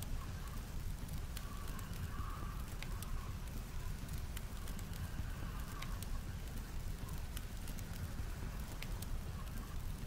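Wood campfire crackling, with sharp pops about once a second, over a steady low rumble of blizzard wind. A faint wavering whistle of wind swells and fades twice.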